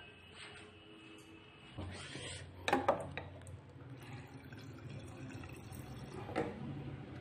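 Water running from the plastic tap of a water-filter dispenser into a drinking glass, with a couple of sharp clicks about three seconds in.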